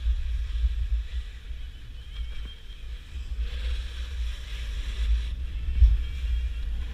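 Wind buffeting a body-worn action camera's microphone as a skier glides downhill, a low, unsteady rumble. For about two seconds in the middle a hiss of skis sliding on snow rises over it.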